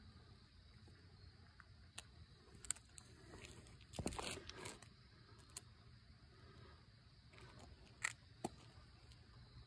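Near silence over a low hum, broken by a few faint clicks and a short rustling scrape about four seconds in.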